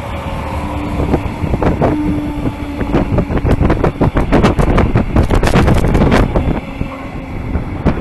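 Electric locomotive-hauled double-deck regional train passing: a steady hum at first, then a rapid clatter of wheels over rail joints, loudest in the middle. Wind rumbles on the microphone.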